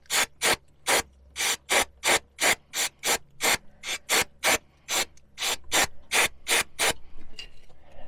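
Quick back-and-forth scrubbing of a brush on the backhoe's oil drain plug, about three rasping strokes a second, stopping about seven seconds in.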